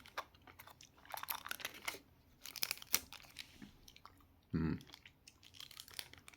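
Food being chewed and crunched close to the microphone in irregular crunches, with a louder crunch about three seconds in. A short low vocal hum comes about four and a half seconds in.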